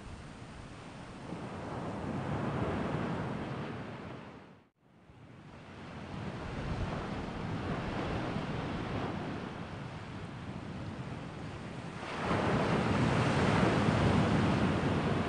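Rushing noise that swells and ebbs in slow surges, cutting out for an instant about five seconds in and growing louder about twelve seconds in.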